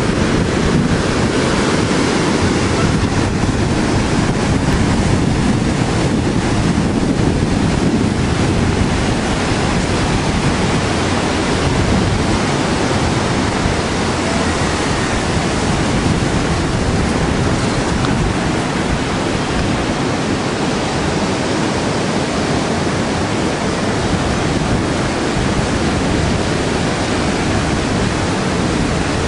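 Surf breaking on a sandy beach, a steady rush of waves mixed with wind buffeting the microphone.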